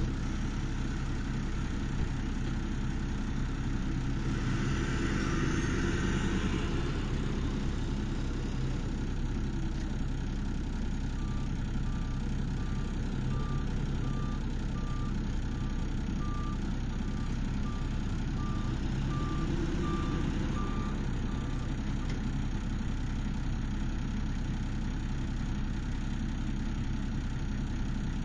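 Service truck engine running as the truck pulls away across the site, swelling in the first few seconds. Midway, a reversing alarm beeps evenly for about ten seconds.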